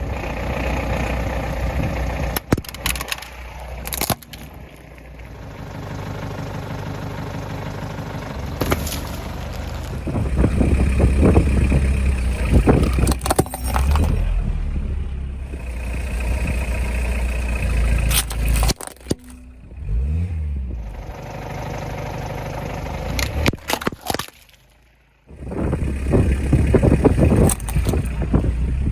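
A car's tyres rolling over and crushing objects, with repeated sharp cracks and crunches over the low engine and tyre rumble, broken by several abrupt cuts.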